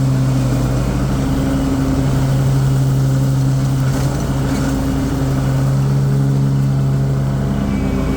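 Cub Cadet Tank L48 commercial zero-turn mower's 694 cc Kohler engine running steadily at working speed, with the cutting deck's blades engaged as it drives across the lawn.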